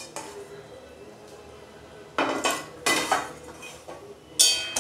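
Metal spatula knocking and scraping against a metal kadai while stirring paneer in curry: three clanks with a short metallic ring, about two, three and four and a half seconds in, the last the loudest.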